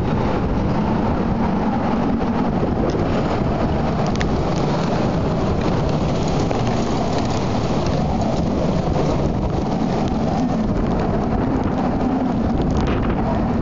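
Typhoon storm wind blowing hard with rain, a steady rushing noise with wind buffeting the microphone.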